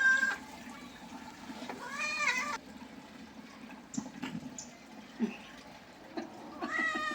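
Domestic cat meowing: a call ending just at the start, a short arched meow about two seconds in, and a longer meow near the end.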